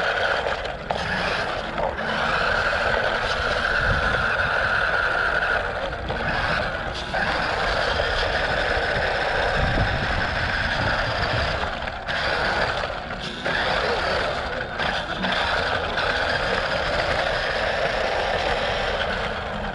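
Budget RC car's electric motor and gears whining, with its tyres rolling over rough paving, picked up by the camera mounted on the car. The whine holds steady and drops out briefly several times as the throttle is eased off and reapplied.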